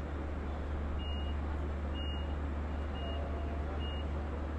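Steady low drone of a diesel train standing with its EMD DM30AC locomotives running, with a short high electronic beep repeating about once a second, like a vehicle back-up alarm.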